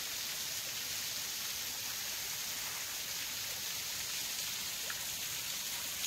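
Low-flow waterfall: a thin stream of water falling down a rock face and splashing onto the rock ledges and the pool below, with a steady, even hiss.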